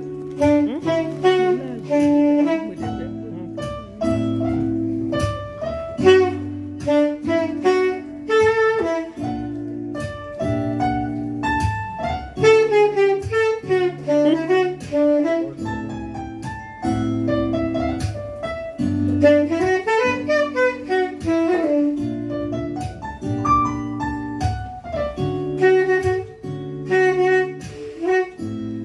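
Live jazz: a saxophone playing a melody, with quick rising and falling runs around the middle, over repeated sustained chords from a Yamaha MO8 keyboard.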